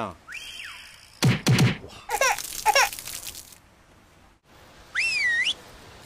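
Cartoon-style comedy sound effects: a string of short whistle-like pitch glides. There is a quick falling swoop about a second in, two squeaky swoops around two to three seconds, and a wavering whistle near the end.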